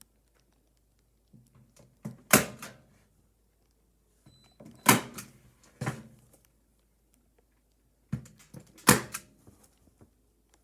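Staples being driven into a plywood backboard to fasten alarm wiring: three loud, sharp strikes a few seconds apart, each with a few smaller knocks around it.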